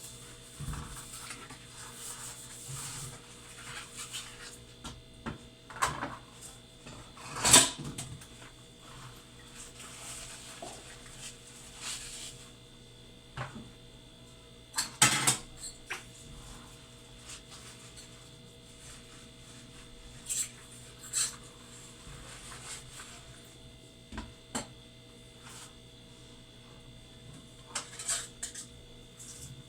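Refrigerator humming steadily, with scattered knocks and clatters on top; the two loudest come about a quarter and about halfway through.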